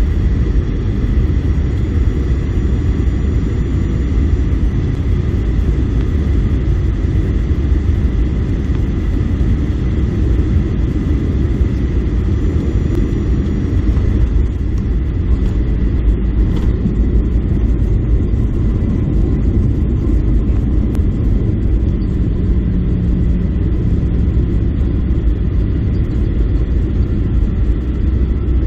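Cabin noise inside a Boeing 737-800 airliner: a loud, steady low rumble of engines and airflow, with faint steady whines above it. The hiss eases slightly about halfway through.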